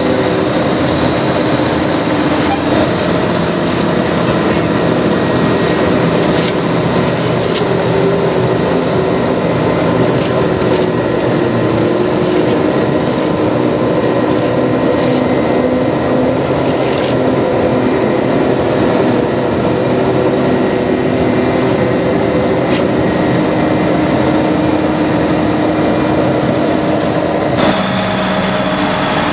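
Heavy diesel road-paving machinery running steadily, with several level engine tones over dense mechanical noise. The tones shift abruptly near the end.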